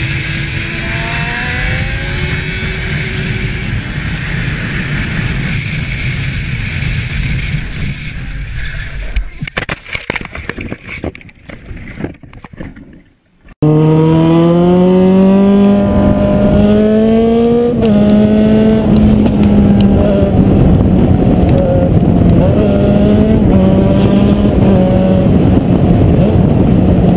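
Motorcycle engine heard from the rider's helmet camera over wind noise, its revs rising and then running on until the sound breaks up and nearly fades out. After a sudden cut, another motorcycle engine climbs steadily in pitch, changes gear, and then holds a steady cruise with small changes in revs.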